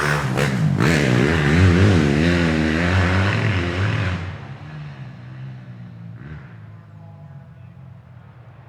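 Motorcycle engine revving, its pitch wavering up and down in quick blips, then dropping off about four seconds in to a quiet, low idle.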